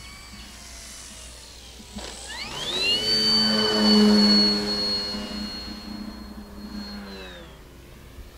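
Electric motor and propeller of an Avios Grand Tundra RC bush plane on a 4-cell battery throttling up: a rising whine about two seconds in, then a steady high whine over a lower propeller drone. It is loudest as the plane passes close and fades as it climbs away near the end.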